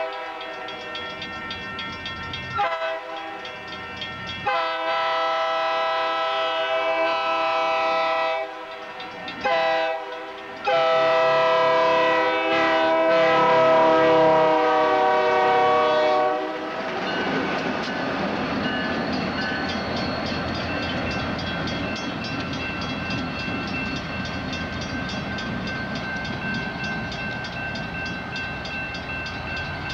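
Diesel locomotive air horn sounding four blasts, long, long, short, long, the grade-crossing signal; the last long blast is held as the locomotive passes close by and its pitch drops. After that, the train's cars roll past on the rails with a steady, even clatter.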